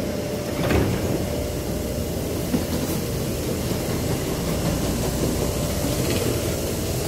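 Taipei Metro C301 train standing at the platform with its doors open, giving off a steady hum with a constant tone.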